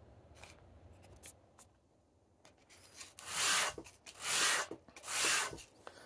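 A wooden disc rubbed on a sheet of sandpaper laid flat on a board, flattening the base of a hand-carved goblet. Three long scraping strokes come about a second apart, starting about three seconds in, after a few faint knocks of the disc being handled.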